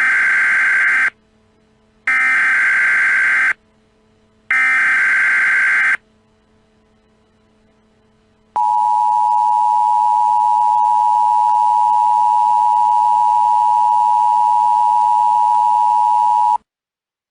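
Emergency Alert System SAME header: three short bursts of screeching data tones, each about a second long, then the two-tone EAS attention signal held steady for about eight seconds before it cuts off.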